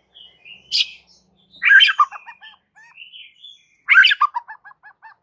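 Male white-rumped shama (murai batu) singing in full voice: loud, varied whistled phrases a couple of seconds apart. The later two phrases each end in a quick run of short, repeated notes.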